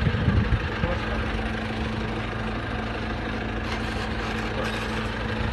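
Drilling rig's engine running steadily, a constant low hum.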